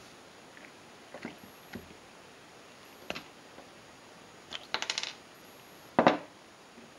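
Small metal shift-knob adapter pieces clicking and clinking together as they are handled: a few light clicks, then a ringing jingle about five seconds in and a louder clink about a second later.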